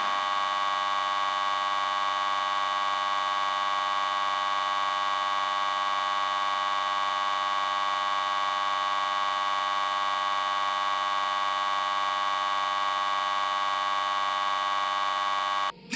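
A steady electronic buzzing tone with many overtones, held at one pitch and level without a break, then cutting off abruptly near the end.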